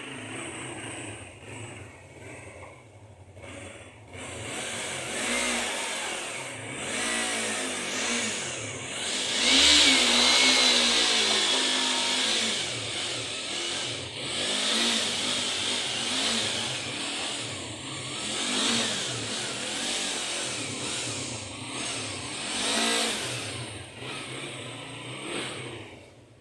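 Yamaha R3 sport motorcycle's parallel-twin engine revving, its pitch rising and falling again and again, loudest about ten seconds in.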